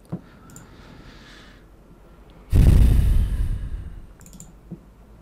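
A heavy exhale, a sigh, blown onto a close microphone about two and a half seconds in, fading over about a second and a half, with a few soft computer mouse clicks around it.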